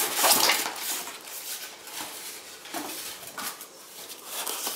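Polystyrene foam packing blocks being lifted and shifted inside a cardboard box, rubbing and knocking against each other and the box in a run of scraping handling noises. The biggest is in the first second, with smaller ones later.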